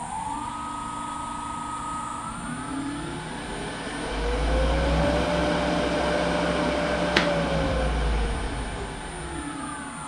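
Jet 16-42 EV wood lathe's variable-speed motor and belt drive running, its whine rising in pitch as the speed is brought up over the first few seconds, holding with a low rumble at top speed, then whining down as the speed is turned back down. The lathe runs properly on its newly fitted drive belt and power switch.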